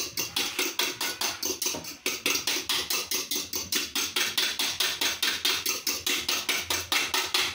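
Eggs being beaten by hand in a bowl, the utensil clicking against the bowl in a steady fast rhythm of about seven strokes a second.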